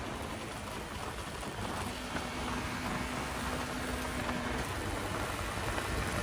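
Motorcycle running at a steady speed on the road: an even engine and road noise with a faint steady hum in the middle.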